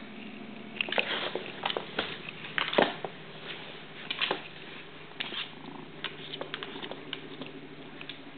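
Tabby kitten purring steadily close to the microphone, with irregular scratches and taps as it paws about while playing, loudest in the first three seconds.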